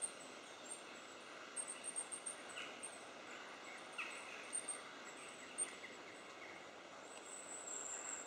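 Goldcrests calling: clusters of very high, thin, short notes, then a longer high run of notes near the end, over a steady background hiss. A few fainter, lower chirps sound in between.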